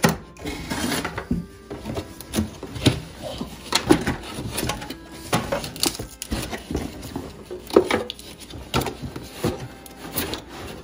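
Plastic toy dollhouse pieces and cardboard packaging being handled: an irregular string of light knocks and clicks with rustling between them.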